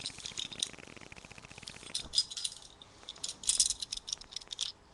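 Metal belt buckle and belt hardware jingling and clinking in several short bursts of quick clicks as the buckle is handled and rubbed.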